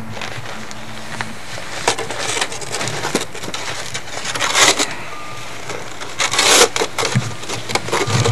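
A snow shovel scraping and scooping through snow, in irregular strokes of different lengths, several in quick succession near the end.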